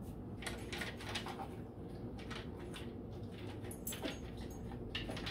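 A dog eating dry food from a plastic slow-feeder bowl: irregular clicks and crunches of kibble against the plastic.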